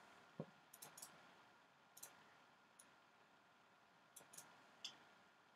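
Near silence broken by about eight faint, sharp computer mouse clicks, spaced irregularly.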